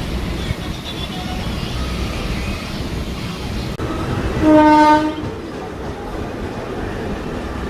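Steady running rumble of a suburban local train's motor coach, heard from on board, with one short horn blast about four and a half seconds in.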